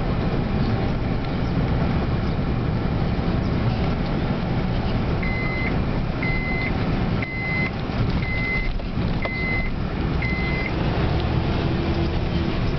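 Car cabin noise while driving: a steady low rumble of engine and tyres on the road. In the middle come six short, high electronic beeps, about one a second.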